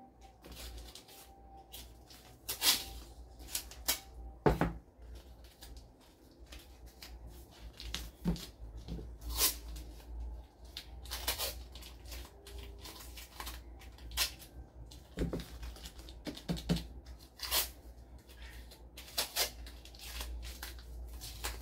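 Masking tape being pulled off its roll and torn: a dozen or so short, sharp rips and crackles at uneven intervals, over a steady low hum.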